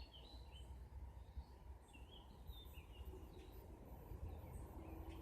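Faint birds chirping: short, scattered notes over a low, steady outdoor rumble.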